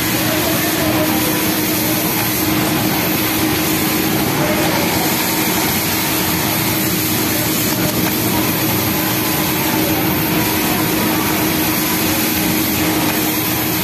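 Steady din of industrial sewing machines running on a garment factory floor: an even mechanical whir with a constant hum under it.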